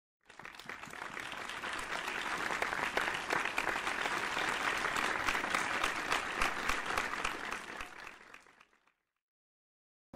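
A crowd applauding, many hands clapping densely; it fades in at the start and fades out near the end.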